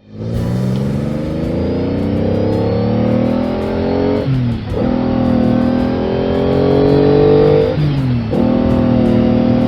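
A motor vehicle's engine accelerating through the gears: its pitch climbs, drops at a gear change about four seconds in, climbs again and shifts once more near the end.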